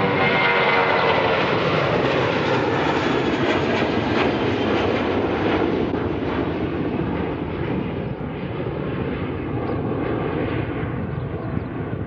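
Airbus A320 jet engines at takeoff power as the airliner climbs away after lift-off. The noise is loudest at first, with a whine falling in pitch near the start, then fades slowly as the aircraft recedes.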